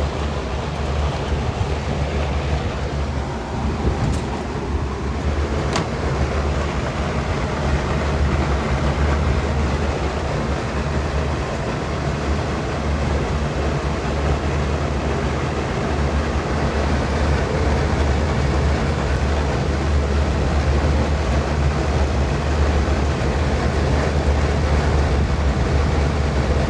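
Air-conditioner condenser fan running, a steady low hum with rushing air, while the compressor stays off. The compressor is overheated and not starting.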